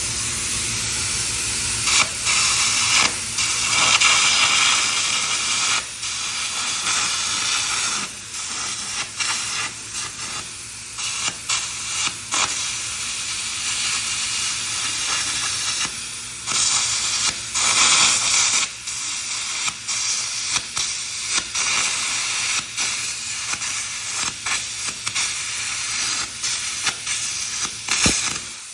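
Air carbon arc gouging: the carbon electrode's arc crackles and hisses under a blast of compressed air as it gouges steel. The sound keeps dipping and breaking off briefly as the arc is broken and struck again.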